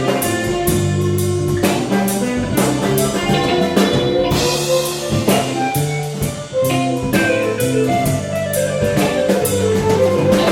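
Background music: an upbeat band track with drum kit and guitar, a steady beat throughout.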